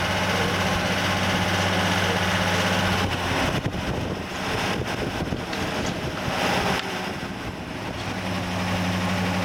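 Steady low motor hum from a Ford Fairlane convertible. It stops about three seconds in and starts again near the end.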